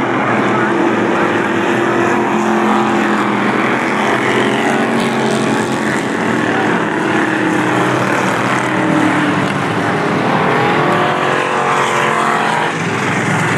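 Several dirt-track stock cars' engines running hard around the oval, their pitch rising and falling as cars accelerate and pass. The sliding of pitch is strongest in the second half.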